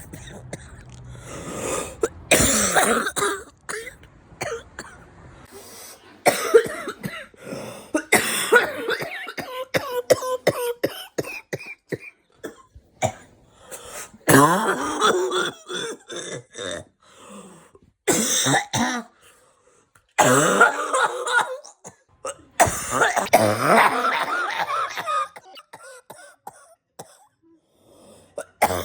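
A person coughing in a series of loud bouts, each a second or two long, with short pauses between.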